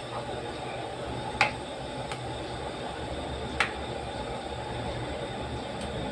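Metal ladle clinking twice against a metal pan of simmering coconut-milk chicken soup as it is stirred, about a second and a half and three and a half seconds in, over a steady low rushing noise.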